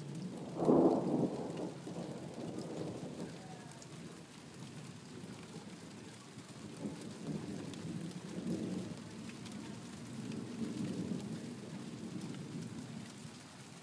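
Thunder from a supercell storm: a loud clap about a second in, then a long low rumble that swells and fades several times.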